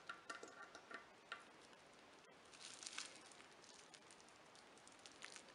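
Near silence, with a few faint scattered clicks and ticks from a small precision screwdriver backing tiny cross-head screws out of a camera's image-sensor mount.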